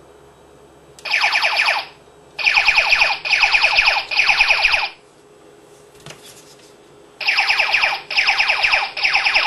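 Short buzzing bursts, each well under a second, made of rapid pulses: one burst about a second in, then a quick run of three, a pause, and another run of three near the end.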